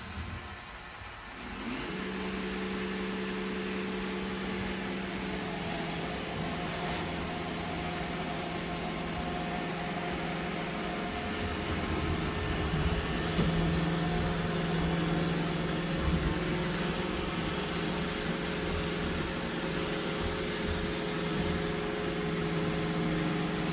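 iRobot Roomba i7 robot vacuum running: its suction fan and brush motors start up about two seconds in and keep up a steady whirring hum, the pitch dipping slightly a few seconds later.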